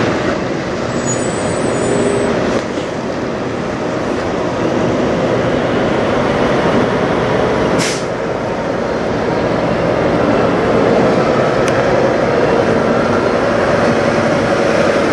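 Diesel engines of parked semi trucks idling, a loud steady running noise with a low hum, and one brief high click about eight seconds in.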